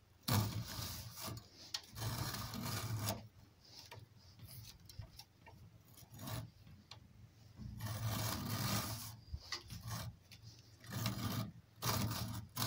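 Stiff, almost raw cowhide lace being pulled through a hand lace skiver (descarnadora), its blade shaving the lace against a roller: rasping scrapes in about six pulls of up to a second and a half each, with short pauses between. The blade is taking a thin cut so the hard lace does not tear.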